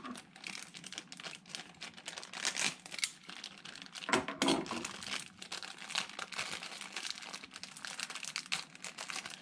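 Plastic packaging around a new raw-water pump impeller being crinkled by hand as it is opened, with irregular crackling throughout.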